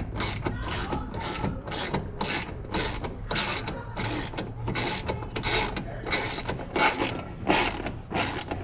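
Hand ratchet on a long socket extension, swung back and forth to tighten a bolt. Its pawl clicks in short bursts, about two or three strokes a second.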